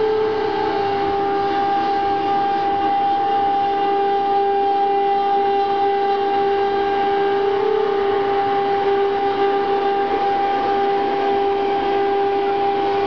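BJD-1326 CNC router cutting a red acrylic sheet: the spindle's steady high whine with the hiss of the bit cutting the plastic.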